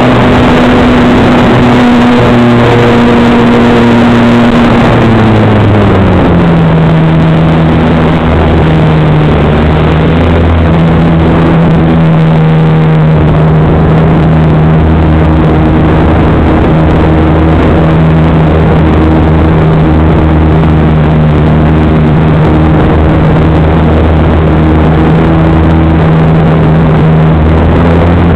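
A radio-controlled model airplane's motor and propeller, recorded loud and close on board, with rushing air noise. The pitch drops about five to six seconds in as the throttle is pulled back, then holds steady at the lower speed.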